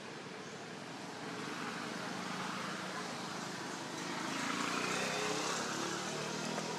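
A motor vehicle's engine running nearby, getting louder about four seconds in.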